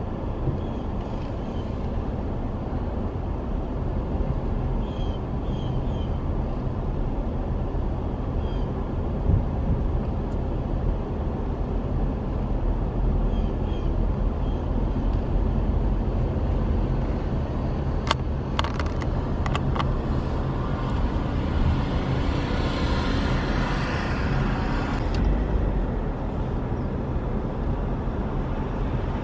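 Car driving, with a steady low rumble of engine and road noise. A few sharp clicks come about two-thirds of the way in, followed by a few seconds of hiss.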